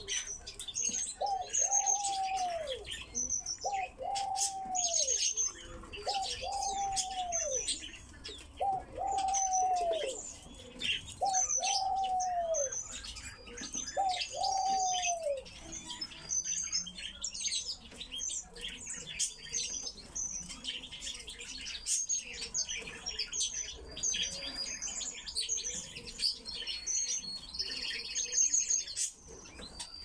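Caged pine grosbeaks chirping and twittering throughout. Over the first half, another bird gives a low call that falls in pitch, repeated over and over about every second and a half, then stops.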